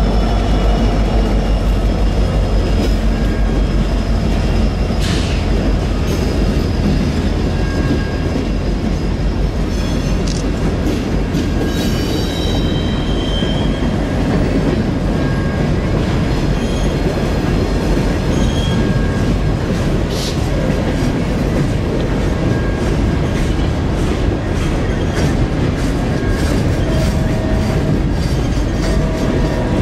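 Herzog ballast hopper cars rolling past on steel wheels: a steady wheel-on-rail rumble with clicking over rail joints and thin, high wheel squeals now and then. At the start, the trailing CP SD30C-ECO diesel locomotive is still heard going by.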